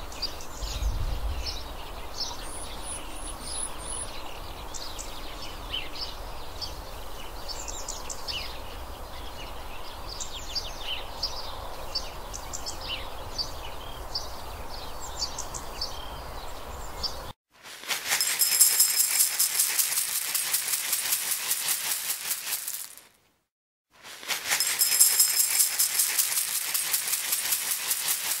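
Many small birds chirping and twittering in quick, overlapping calls over a soft outdoor background. About seventeen seconds in this gives way to dry cat kibble being poured into a stainless-steel bowl: a loud, dense rattle of pellets on metal, in two pours with a brief pause between them.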